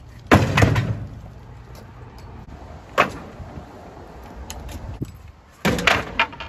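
Wooden pallets thrown onto a steel-framed utility trailer. The first lands with a loud clattering bang just after the start, there is a single sharp knock about three seconds in, and another pallet lands with a clattering bang near the end.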